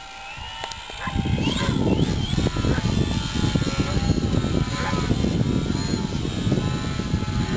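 Electric motor and propeller of a 3D aerobatic RC airplane whining, the pitch sliding up and down with the throttle. From about a second in, a loud low rumble of wind buffeting the microphone drowns most of it.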